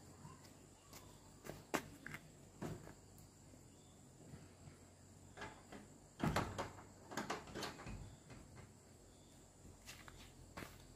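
Wooden plank door of a house being shut and fastened: a few sharp clicks in the first three seconds, then a cluster of wooden knocks and rattles about six seconds in.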